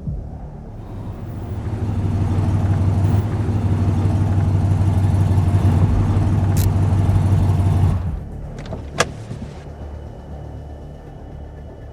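Car engine running steadily, growing louder over the first couple of seconds and then dropping away about eight seconds in, followed by a few sharp clicks.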